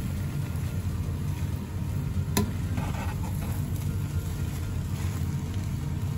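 Steel spatula stirring and scraping cooked rice in a nonstick pan, with one sharp tap of the spatula on the pan about two seconds in, over a steady low hum.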